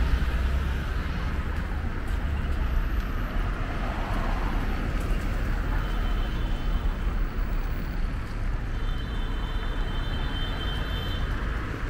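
Steady road traffic noise: a continuous low rumble with a faint thin high whine about halfway through and again near the end.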